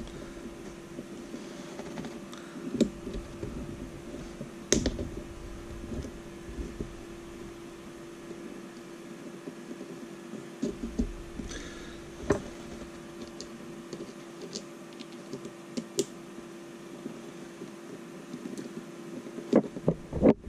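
Scattered light clicks and taps of small plastic and metal parts being handled and fitted by hand on an RC rock crawler's axles and driveshafts, over a steady low hum, with a few sharper knocks near the end.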